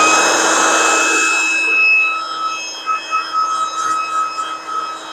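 Heat gun's blower motor running at speed, a steady whine over a rush of air.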